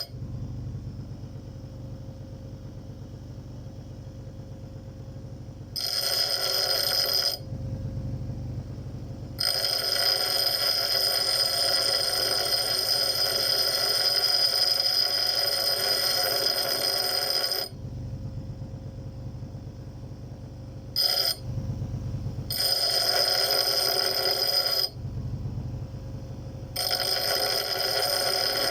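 Small single-cylinder engine of a Neva walk-behind tractor running with a low steady pulsing, joined several times by a high steady whine that cuts in and out abruptly.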